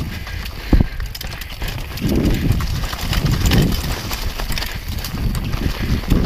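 Mountain bike riding fast down a dirt and rock singletrack: tyres crunching over the ground, the bike rattling and clicking over bumps, and low wind rumble on the microphone that rises and falls, with one sharp knock about a second in.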